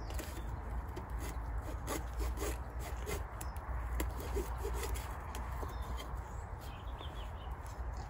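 Scattered sharp clicks and rustles of pumpkin stems being cut with a small hand tool and dead vines being handled, over a steady low rumble.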